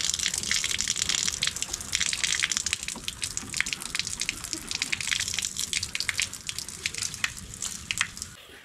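Water running from a wall-mounted chrome sink tap, gushing and splashing with many crackling drops. The sound weakens near the end as the stream thins.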